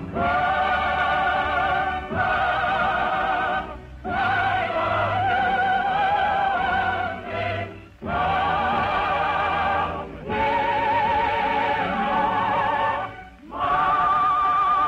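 Operatic singing with orchestra accompaniment in an old, narrow-band broadcast recording: long held notes with wide vibrato, sung in phrases broken by short breaths every two to four seconds.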